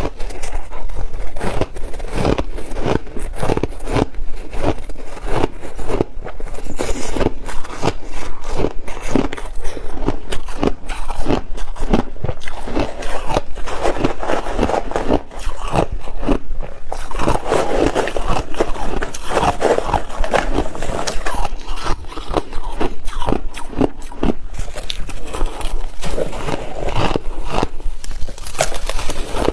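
A person biting and chewing ice close to the microphone: a continuous run of crisp crunches and crackles, with a softer, denser stretch of chewing about halfway through.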